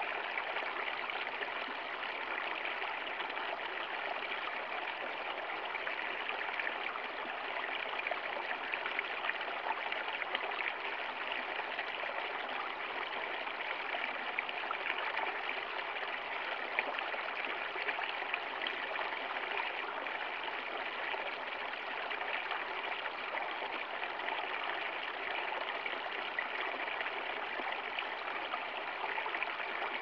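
Shallow stream of water flowing and splashing over rocks in a small cascade, a steady, unbroken sound.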